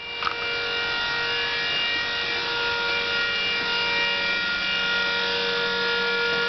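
Electric power steering pump whining steadily, with an even more pronounced hiss from two DC-to-DC converters working under the load of the pump and headlights.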